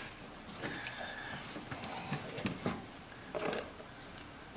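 Faint handling sounds of an A/C line's metal manifold block being fitted with sealing washers: a few light clicks and knocks spread over several seconds.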